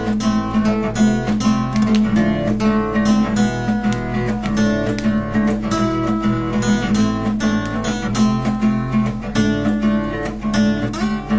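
Acoustic guitar strummed in steady chords, with even strokes several times a second and no singing.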